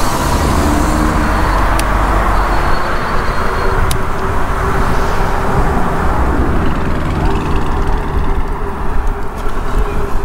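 Wind rushing over the microphone of a moving e-bike, over the steady noise of car traffic passing on the road alongside. A steady hum runs underneath, and two brief clicks come about two seconds apart.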